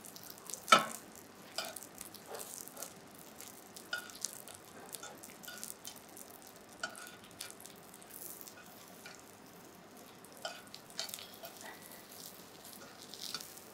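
Spring rolls shallow-frying in a thin layer of oil in a nonstick frying pan on medium heat, giving a light steady sizzle. Scattered clicks and taps of metal tongs on the pan and rolls are heard as the rolls are turned, the sharpest about a second in.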